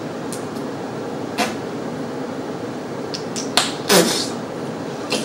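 Mouth noises from chewing gum: a few short wet clicks and smacks, with a louder short puff of breath about four seconds in, as gum is stretched over the tongue to blow a bubble. A steady background hiss runs underneath.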